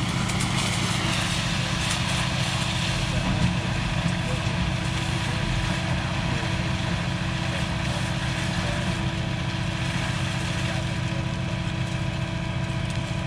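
Heavy diesel engine of the concrete pumping equipment running steadily at a constant speed.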